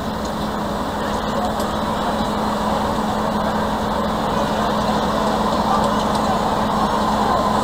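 Class 33 diesel locomotive's Sulzer eight-cylinder engine running as the loco moves slowly, a steady drone with a held hum, growing gradually louder as it draws closer.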